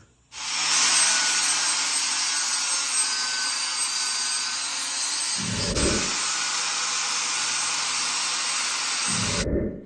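Power grinder, an angle grinder, beveling the end of a steel link tube to prepare it for welding: a steady, loud grinding that cuts off abruptly near the end. Two low thuds, about five and a half seconds in and just before it stops.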